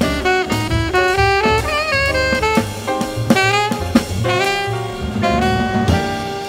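Live small-group jazz from the mid-1960s: a saxophone plays a running solo line of many short notes over walking double bass and drum kit.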